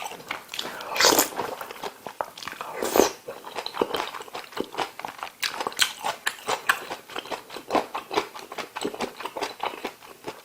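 A person eating close to the microphone: rapid wet chewing and smacking clicks, with two longer, louder noisy mouthfuls about one and three seconds in.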